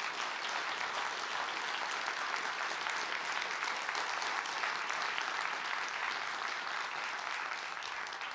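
Audience applauding steadily: many hands clapping in a dense patter that dies down near the end.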